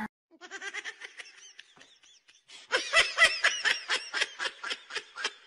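A person laughing hard in quick, repeated bursts, quieter at first, then louder from about halfway through.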